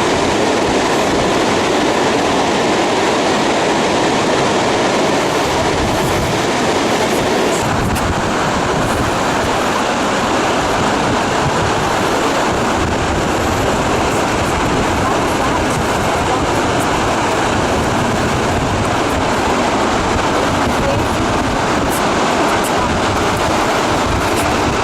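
Steady rumble and road noise heard from inside a moving tour bus, with no distinct events.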